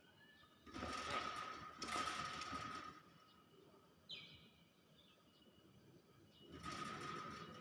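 Hill myna making harsh, hissing calls, three of them about a second each, with a short high whistled note about four seconds in.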